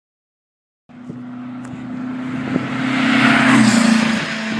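About a second of silence, then a motor vehicle engine running with a steady hum while a rush of noise builds to its loudest about three and a half seconds in and then eases.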